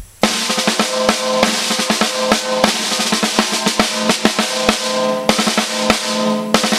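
A Premier resonator snare drum (inner-shell liner, vintage Evans Uno top head, 20-strand snare wires) played with sticks in a fast stream of strokes and rolls, starting about a quarter second in. The snare wires buzz under every stroke, and the drum rings with a steady tone beneath the hits.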